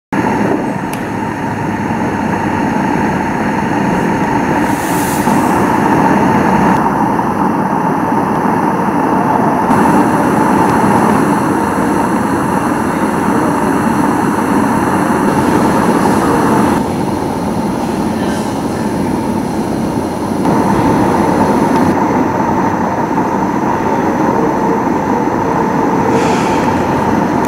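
Gauge 1 live-steam model of an Adams Radial tank locomotive running: a steady hissing rush with a steady high tone through it, changing abruptly a few times at edits.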